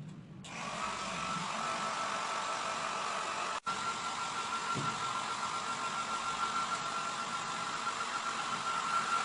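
Agaro HD-6501 compact hair dryer running: a steady rush of blown air with a high, even motor whine. It starts about half a second in and drops out for an instant about a third of the way through.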